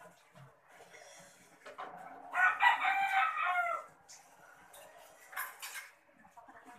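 A rooster crowing once, a little over two seconds in: one call of about a second and a half that drops in pitch at its end. A brief hiss follows a few seconds later.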